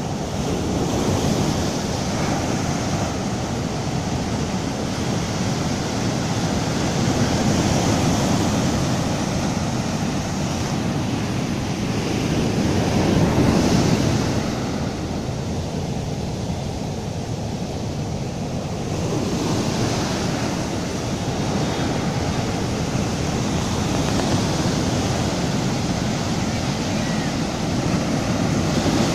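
Surf on a sandy beach: rough waves breaking and their foaming swash rushing up the sand and draining back as backwash, a continuous rushing that swells louder every five or six seconds as each wave comes in.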